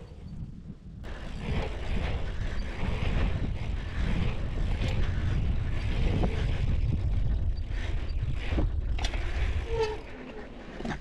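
Dirt jump bike ridden on a pump track, heard from a bike-mounted action camera: low tyre rumble and wind buffeting the microphone, with scattered clicks and rattles from the bike. It swells about a second in and eases near the end.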